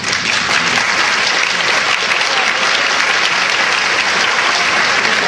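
An audience applauding: dense, steady clapping that stays at one level throughout.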